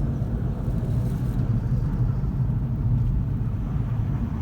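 50-series Toyota Prius moving at low speed, a steady low rumble of the car in motion.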